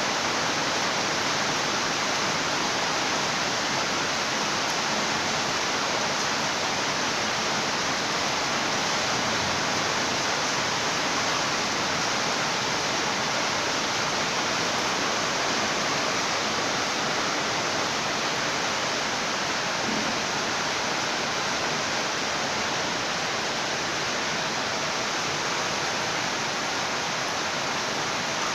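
Steady rain falling, a dense even hiss without change.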